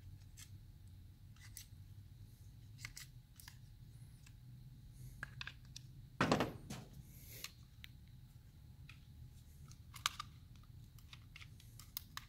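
Plastic parts of a Volvo I-Shift gear selector lever clicking and tapping as they are handled, with one louder knock about six seconds in.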